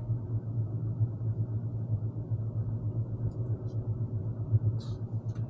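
Steady low rumble of a small van's engine and road noise, heard from inside the cab while driving.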